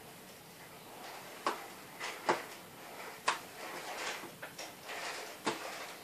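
Back case of a Samsung Galaxy Tab 3 tablet being pried off around its edge: sharp clicks as the little retaining clips let go, four louder ones spread over a few seconds among fainter scrapes and ticks.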